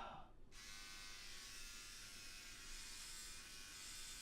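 Electric shaver buzzing steadily and faintly, switched on or coming in about half a second in, after a short, louder sound at the very start.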